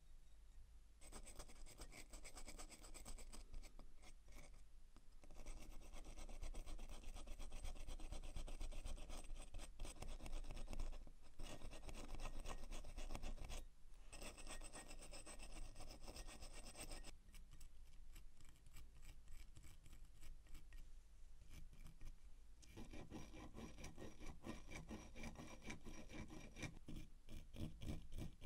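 Rapid back-and-forth rubbing strokes on a small metal watch part, in long runs with short breaks, going quieter for a few seconds before picking up again.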